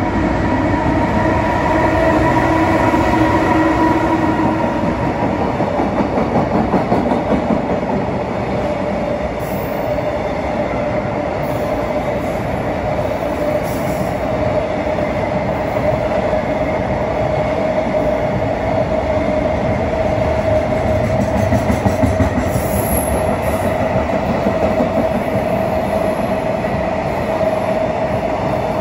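Freight train rolling past, wheels clicking over the rail joints in rhythmic groups, with a steady ringing tone running through the noise.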